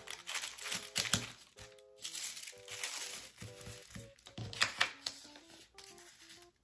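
Light background music with short plucked-sounding notes, over the crinkle and rustle of thin tissue paper and plastic stencil sheets being handled and lifted from a box, with louder rustles about a second in and again about four and a half seconds in.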